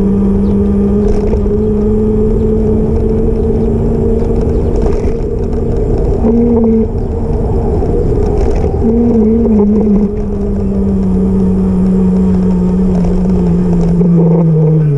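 Electric bike motor whining steadily as it rides, over a low rush of wind on the microphone; the whine's pitch sinks near the end as the bike slows.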